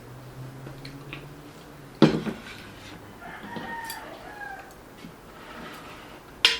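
A rooster crowing in the background, one drawn-out crow from about three to four and a half seconds in. Sharp clatters of dishes and utensils come about two seconds in and again near the end; these are the loudest sounds.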